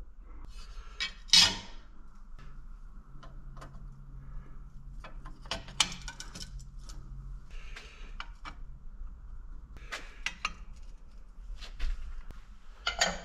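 Laser-cut steel bracket plates clinking and knocking against each other and the metal bench as they are handled and slotted together, in scattered sharp taps, the loudest about a second in. A faint steady hum runs underneath.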